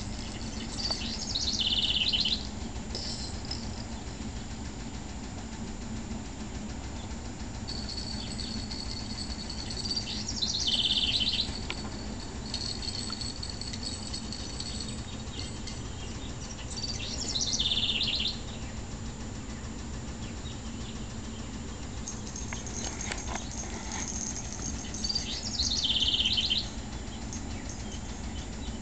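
A songbird singing: four short phrases, each a quick run of high notes falling in pitch, repeated about every eight seconds, with fainter thin high notes between them. A steady low hum runs underneath.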